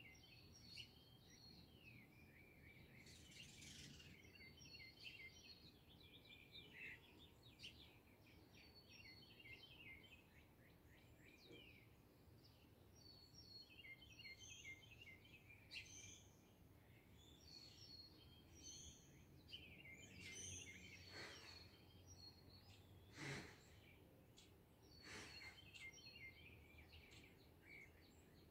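Faint dawn chorus of several songbirds chirping and trilling almost without pause, over a steady low background rumble. A few sharper, louder notes stand out in the last third.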